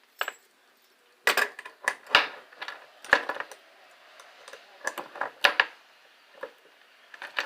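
Metal handcuffs being handled and locked: irregular clicks and clinks in short clusters.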